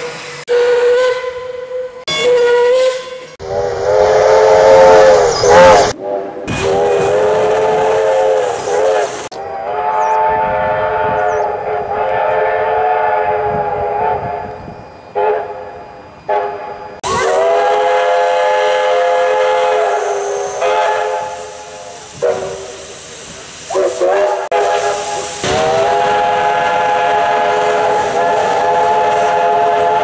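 Steam locomotive whistles. First come short toots on a single-note whistle from a Puffing Billy locomotive. Then, from about three seconds in, a string of long blasts on Victorian Railways K class five-chime short-bell whistles, each sounding as a chord of several notes.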